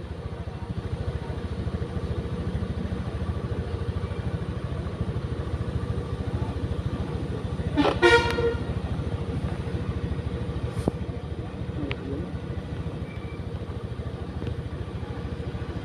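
Bus horn giving one short blast about eight seconds in, over a steady low engine rumble. A sharp click follows a few seconds later.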